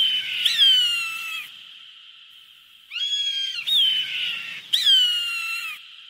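Hawk screaming: a run of about five shrill calls, most dropping in pitch, the longer ones lasting about a second each.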